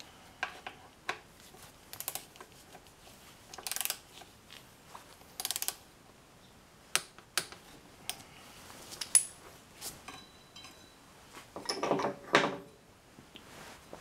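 Hand tools on the motorcycle's front axle pinch bolts during tightening: scattered metallic clicks and a few short rasping bursts, with a louder metal clatter near the end.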